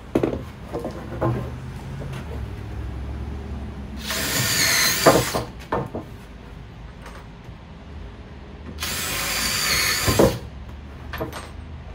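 DeWalt cordless impact driver boring pilot holes into a pine 2x6 board, running twice for about a second and a half each time with a high whine, each run ending in a sharp knock. Small clicks of the tool and board are heard between the runs.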